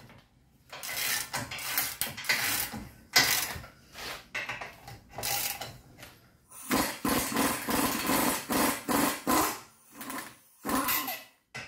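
Irregular metallic clanks and scrapes as a long wrench works a seized brake caliper bolt. From about seven seconds in, a pneumatic air tool runs in a fast, steady rhythm for about three and a half seconds, spinning the bolt out.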